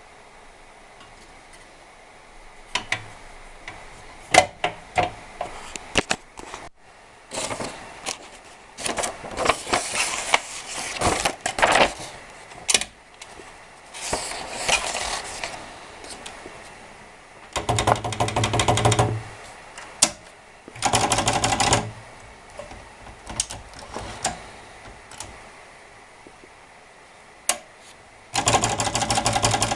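Imperial Model 22 portable manual typewriter being operated. After a quiet start there are single key strikes, then denser runs of typing, and three bursts of rapid clatter, each lasting one to two seconds.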